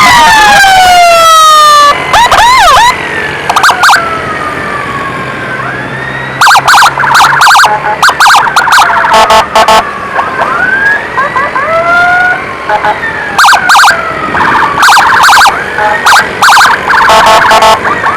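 Ambulance electronic siren, very loud. For the first two seconds it sweeps down in pitch, then it switches to a fast pattern of rapid sharp blasts laid over wails that rise and fall.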